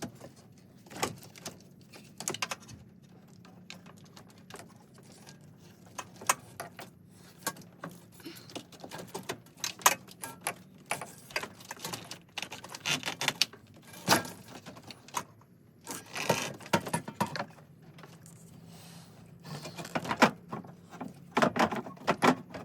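A new Denso radiator being lowered and worked down into its mounts in a Lexus IS250's front end: irregular clicks, knocks and rattles of plastic and metal parts, some in quick clusters, over a faint steady hum.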